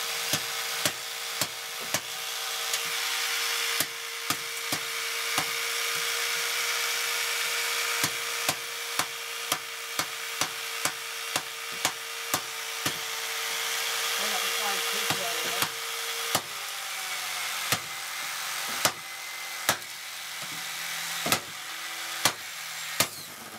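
G-Force BJ-350 jigsaw motor running steadily with no blade fitted while a golf club strikes its plastic housing over and over, in sharp knocks often about two a second. About two-thirds of the way through, the motor's hum changes pitch as it falters, and it cuts out right at the end: the motor has burnt out.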